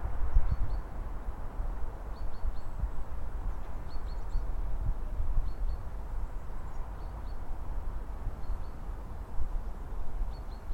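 A small bird chirping in quick runs of two or three high notes, about every one and a half seconds, over a steady low rumble.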